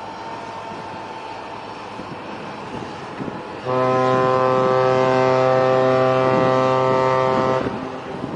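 A large ship's horn sounds one long, deep blast of about four seconds, starting about halfway through, over steady wind and harbour noise.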